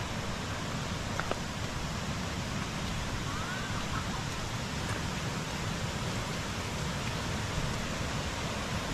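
Waterfall cascade, water rushing and splashing down the rock in a steady, even rush.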